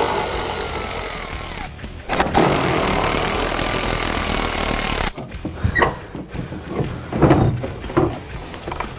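Cordless electric ratchet with an 8 mm socket on an extension, running in two bursts of a few seconds each while backing out a taillight's bolts. After the second burst stops, a few light clicks and knocks follow as the tool and the light are handled.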